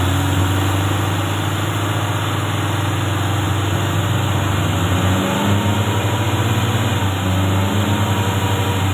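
Engine of an off-road pickup running under load while pulling a truck through deep mud, its revs slowly rising and falling over a steady low drone.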